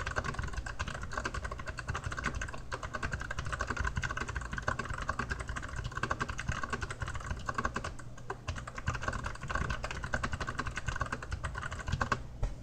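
Fast typing on an Archon AK87 mechanical keyboard with Kailh Box White clicky switches: a dense stream of key clicks that thins briefly about two-thirds through and stops near the end.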